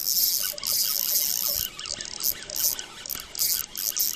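Fishing reel being cranked in quick spurts, its gearing giving a high, hissing whir with short pauses between turns: an angler reeling in a hooked fish, a rockfish, after a bite.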